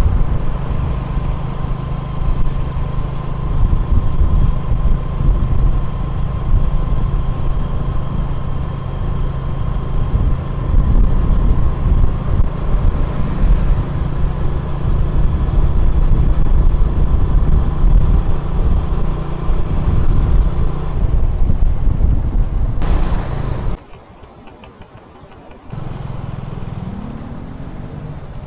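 Riding noise from a moving motorbike: loud wind rumble on the microphone over the engine and surrounding traffic. Near the end the sound drops away abruptly for about two seconds, then returns quieter, with an engine rising in pitch.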